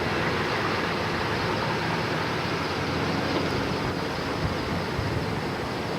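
Steady vehicle noise from cars on the road, an even rushing sound with no distinct events.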